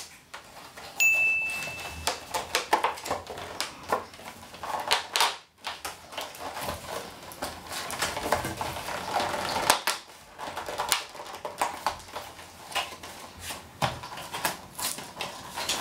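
Cardboard action-figure box being opened by hand: tape peeled off, cardboard flaps and plastic packaging rustling, scraping and clicking irregularly. A brief high-pitched squeak sounds about a second in.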